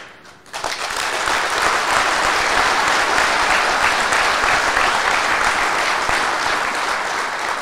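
A large audience applauding steadily. The clapping starts about half a second in and fades away near the end.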